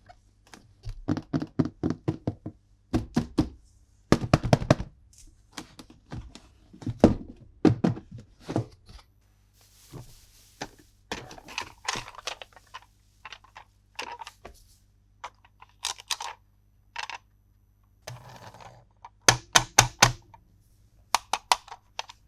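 Hard plastic toy pieces and packaging being handled, with quick runs of sharp clicks and knocks and a brief rustle about ten seconds in.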